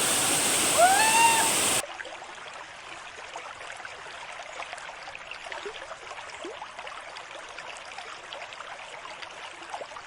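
Flowing river water, a steady rushing with small trickles and splashes. For the first two seconds a louder edited-in sound with gliding tones plays over it, then cuts off abruptly.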